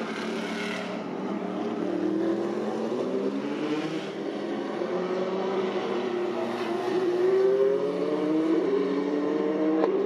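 Endurance race cars, prototypes and a GT car, running on the circuit and accelerating away. Their engine notes climb steadily over several seconds. About eight and a half seconds in, one note falls back at an upshift, then climbs again.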